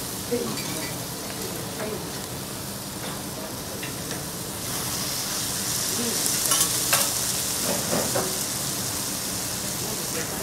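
Meat sizzling on a flat steel teppanyaki griddle, the sizzle growing louder about halfway through, with a few clinks and scrapes of a metal spatula and fork against the hot plate.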